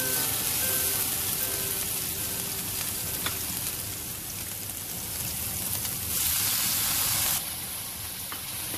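Julienned carrots sizzling in hot oil in a wok as they are stirred with a spatula. In the second half the hiss grows louder for just over a second, then drops off sharply.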